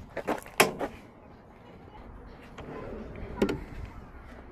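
Several sharp latch clicks and clanks in the first second, then another clank about three and a half seconds in, as a slide-out storage tray on an RV is unlatched and pulled out and a portable flat-top griddle's metal lid is opened.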